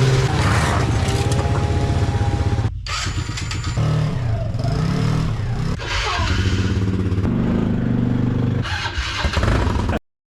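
Vehicle engines running just after being started, the pitch rising and falling as the engine is revved. The sound cuts off suddenly near the end.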